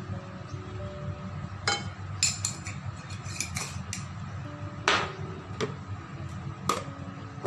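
Scattered clinks and taps of a glass spice jar and a wooden spoon against a ceramic mixing bowl as ground black pepper is shaken in, a few at a time with one louder knock midway.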